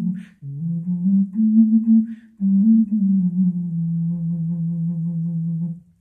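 11-hole contrabass ocarina in C playing a low melody: a few changing notes broken by quick breaths about a quarter-second and two seconds in, then a long held note that stops shortly before the end.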